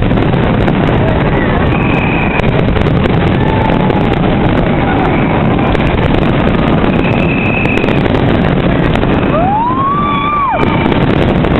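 Large fireworks display: a loud, unbroken rumble of explosions, with short whistling tones over it. One whistle glides up, holds, and drops away sharply about ten seconds in.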